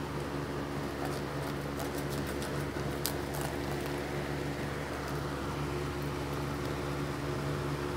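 A steady motor hum made of several fixed tones, with a run of faint crackling clicks from about one to three and a half seconds in as a serrated knife cuts through the roasted turkey's skin.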